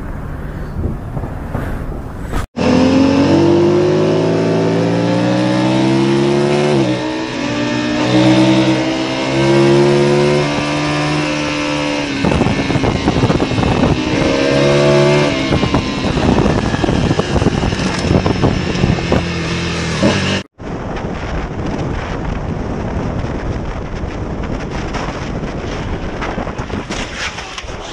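A racing motorcycle's engine heard from on board on a track, revving up with its pitch climbing and dropping sharply at each gear change, then easing off. It is followed by a steadier rush of wind and road noise from a motorcycle riding on a highway.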